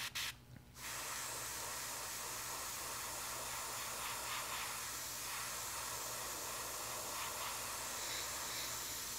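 Airbrush spraying Tamiya acrylic paint thinned with X20A: a steady hiss of air that starts about a second in.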